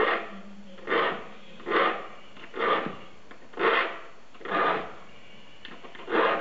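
Hand file rasping across the teeth of a Japanese saw during sharpening (metate): seven short strokes at about one a second, with a slightly longer pause before the last.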